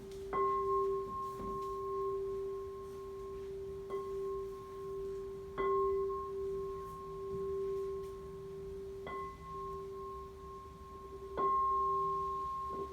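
Crystal singing bowls struck repeatedly with a mallet. Each strike renews a steady, sustained ringing of two tones, a low one and a higher one sounding together.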